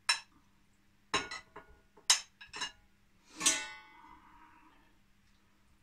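A metal spoon clinking against a cast-iron pan and a steel skewer stand as potato pieces are spooned in. There are about half a dozen sharp clinks, and the loudest, about three and a half seconds in, rings on for about a second.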